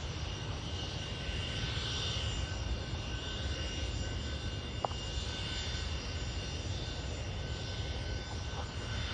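Gulfstream 100 business jet's twin turbofan engines running steadily, a low rumble with a thin high whine over it, as the jet waits to take off. A single faint click about five seconds in.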